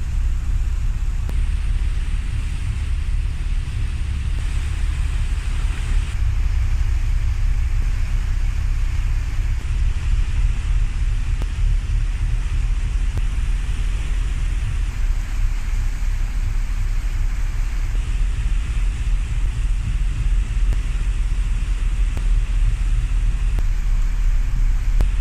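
Wind buffeting a smartphone microphone on the deck of a moving ferry, over the steady low rumble of the ship and the sea.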